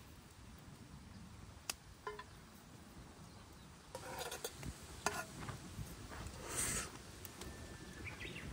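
Scattered light clinks and taps of a metal utensil against camp cookware, one briefly ringing, with a short hiss a little past the middle.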